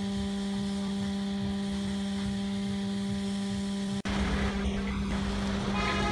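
A steady hum at one constant pitch over a low rumble, breaking off for an instant about four seconds in and then carrying on slightly louder.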